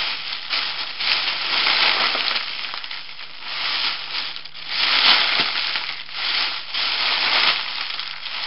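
Foil (mylar) helium balloon crinkling and crackling as it is squeezed and crushed in the hands, in several surges; the balloon is nearly empty of helium.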